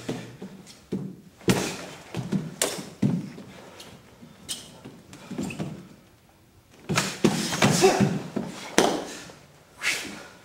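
Sparring impacts: bare feet thumping and shuffling on a wooden floor, with thuds of blocks and strikes landing on arms and body and the snap of cotton karate uniforms. A short quiet lull comes just past the middle, then a dense flurry of thuds.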